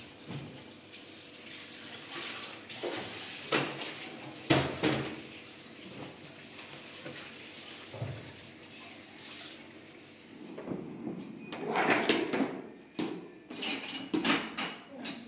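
Dishes and cutlery being washed at a kitchen sink: crockery and metal utensils clinking and knocking, with a few sharp clatters, over the hiss of a running tap.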